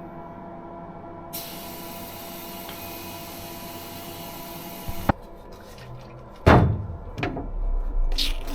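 A steady mechanical hum with several fixed tones, then a click about five seconds in and a heavy thud with a falling sweep a second and a half later, followed by a lighter knock. Near the end, evenly spaced beats begin.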